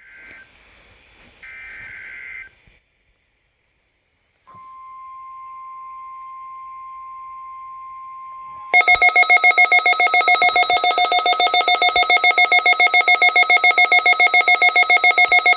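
Emergency Alert System test tones: two short bursts of warbling digital header data, a pause, then a steady high-pitched alert tone for about four seconds. About nine seconds in, a loud, buzzy alarm tone takes over, pulsing several times a second.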